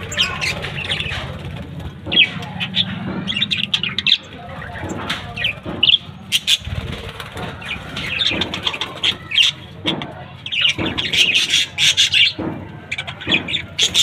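Budgerigars chirping and chattering in rapid, short calls that go on throughout and grow busier toward the end.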